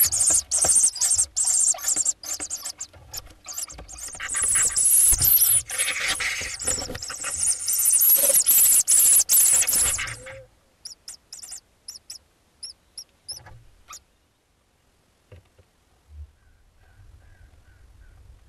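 Hoopoe chicks in a nest box giving loud, shrill hissing calls mixed with clicking scuffles. This stops about ten seconds in and is followed by a few short, high chirps.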